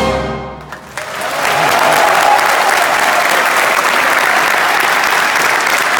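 An orchestra's final chord fades out over the first second. Then a large audience breaks into applause, which builds quickly and holds loud and steady.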